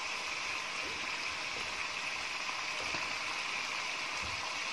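Tomato and onion masala with a little water sizzling and simmering steadily in a steel wok, with a few faint touches of a steel slotted spoon against the pan.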